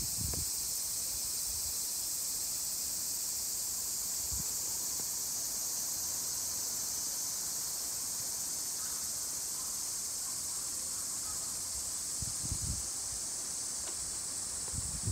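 Steady high-pitched drone of a summer cicada chorus, with a couple of brief low thumps on the microphone about twelve seconds in.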